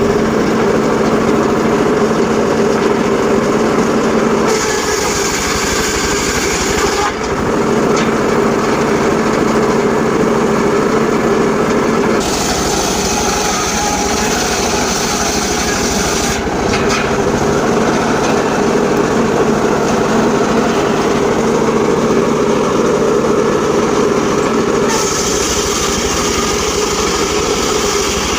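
Engine-driven portable circular sawmill running steadily. Three times a high hiss comes in for a few seconds as the blade cuts through teak.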